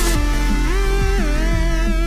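Electronic dance music with a gliding synth lead over bass and a steady kick-drum beat.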